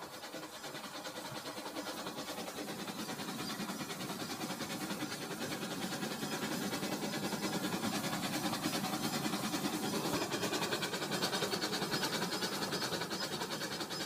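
Toy train running on plastic track: a small motor whirring with fast, even clicking of the wheels, slowly getting louder as it approaches.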